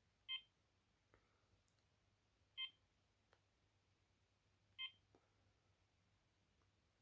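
Key beeps from a Maxon MX-6869 mobile phone as its keys are pressed to step through the menus: three short beeps about two seconds apart, with faint clicks in between.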